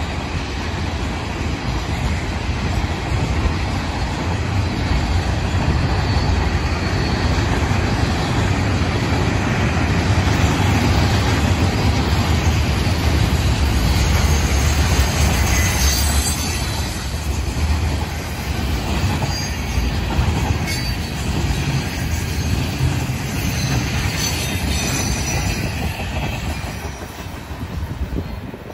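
Freight cars of a BNSF manifest train rolling past on the rails: a loud, steady rumble and clatter of steel wheels, with some high wheel squeal. It fades near the end as the train pulls away.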